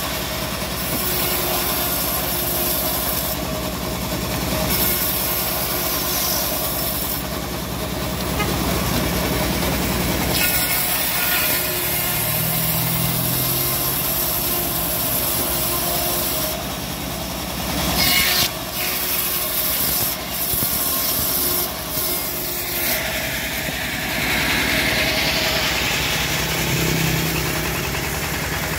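Homemade bandsaw mill running, its engine chugging steadily while the band blade rips teak boards fed through by hand. The sound shifts in character after about ten seconds, with a few brief louder knocks later on.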